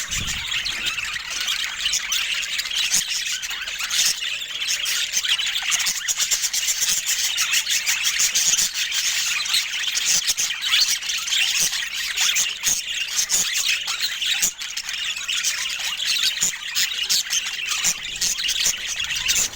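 Budgerigars chattering: a continuous, dense stream of quick high chirps, squeaks and warbles.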